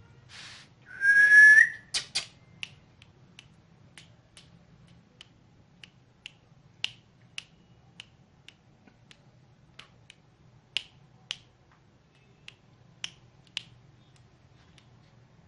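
Indian ringneck parrot giving one loud, short rising whistle about a second in, then a long run of sharp clicks, one or two a second at uneven spacing.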